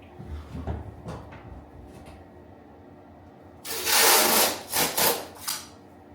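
A few short bouts of rough rubbing or scraping of a hand tool across a surface, loud and close, starting a little over halfway through, after some light knocks of handling.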